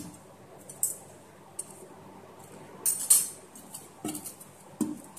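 Steel pot and steel lid clinking and knocking as they are handled, a handful of separate metallic knocks with the loudest clatter about three seconds in.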